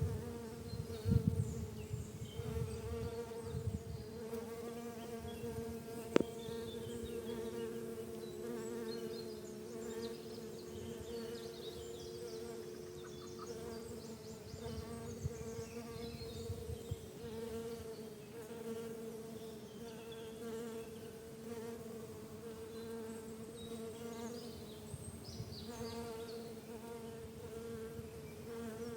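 A garden full of bees buzzing together: a steady, unbroken hum. A second, lower hum joins for several seconds, and there is one sharp click about six seconds in.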